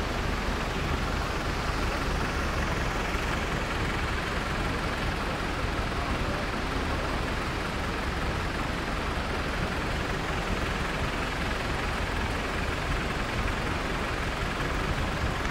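Steady rushing noise of a tall waterfall falling down a rock face.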